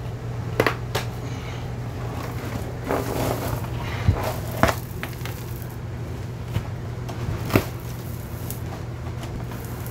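Sheet linoleum flooring being peeled back and rolled off a plywood subfloor: a few sharp crackles and snaps, with a rustle about three seconds in, over a steady low hum.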